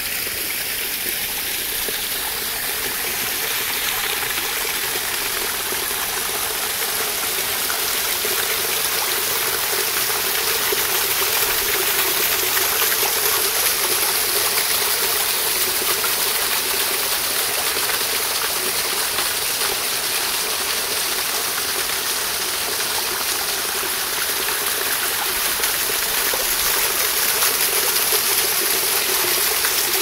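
Shallow creek water running over limestone ledges and rocks, a steady rushing that grows a little louder toward the end where the water spills down between rocks.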